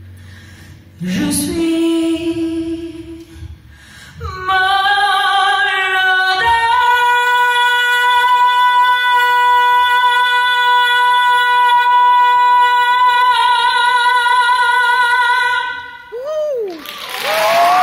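A female vocalist singing live: a short quiet phrase, then a powerful high note held for about ten seconds, wavering with vibrato in its later part, then a short note that slides up and back down. Audience applause breaks out near the end.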